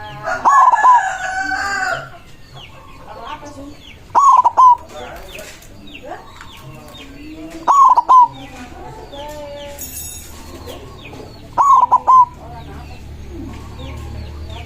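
White zebra dove (perkutut) cooing its song, a short loud phrase repeated four times, about every four seconds. A rooster crows once near the start, and small birds chirp faintly throughout.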